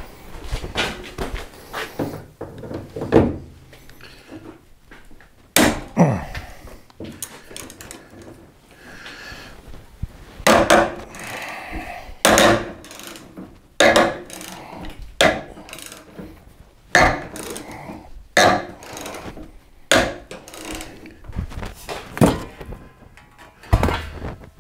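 Irregular metal clanks and knocks from hand tools and the steel spare tire mount as it is unbolted and worked loose from a 1988 Ford Bronco's cargo area, some strikes ringing briefly. A short falling squeak comes about six seconds in.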